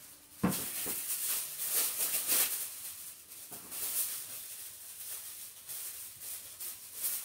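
Aluminium kitchen foil crinkling and rustling as it is handled, starting with a sharp crackle about half a second in and going on in irregular crackles.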